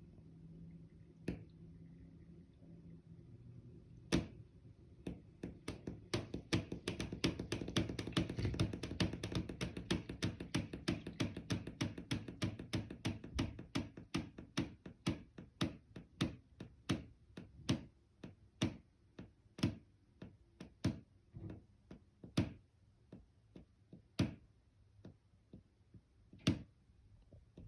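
Sharp popping and ticking knocks from inside a bedroom wall: a few single pops, then a quickening run of several knocks a second over a low hum, slowing to about one a second and then one every couple of seconds. Maintenance suspected the pipes in the wall, but foam sealing has not stopped it.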